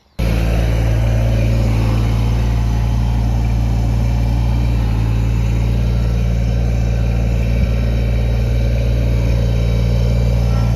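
Kubota BX24 compact tractor's three-cylinder diesel engine running at a steady speed, cutting in abruptly right at the start.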